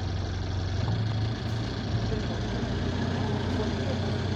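Diesel engine of a Euro 6 Alexander Dennis Enviro200 bus running, heard from inside the passenger saloon as a steady low drone that rises slightly about a second in. The uploader says the bus has a burst turbo.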